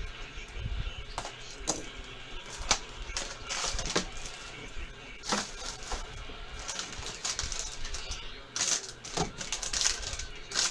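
A sports trading-card box being handled and opened by hand: irregular rustling and scraping of cardboard and packaging, with scattered sharp clicks.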